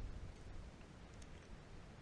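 Near quiet: faint outdoor background rumble, with a faint small tick about a second in.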